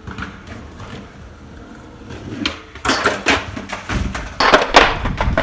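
A skateboard trick on a stair handrail going wrong: about two and a half seconds in comes a run of loud clattering and scraping impacts as the board and skater come down hard onto the concrete, the loudest near the end.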